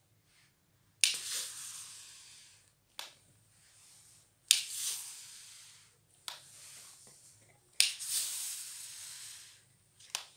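Edmark handheld garment steamer puffing steam three times, about three seconds apart. Each puff starts with a sharp click from the steam handle and a hiss that fades over a second or so. Lighter clicks fall in between.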